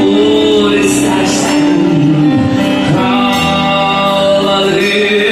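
Live band music with a male voice singing over keyboard, guitar and drums, loud through the concert PA.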